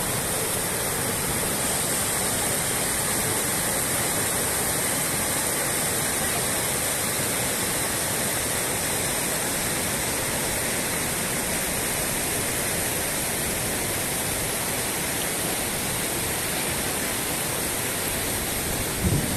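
Rocky mountain river rushing over stones in shallow white-water rapids: a steady, unbroken rush of water.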